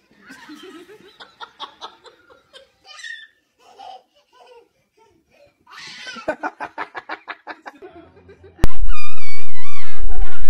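A person laughing hard in quick, even bursts for about two seconds. Near the end, loud music with a wavering high melody cuts in suddenly.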